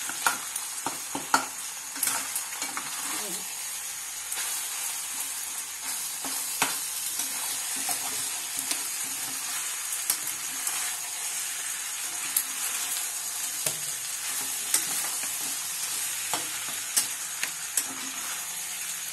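Sauced macaroni sizzling in a hot kadai while a spatula stirs and tosses it, with frequent sharp clicks and scrapes of the spatula against the pan over a steady hiss.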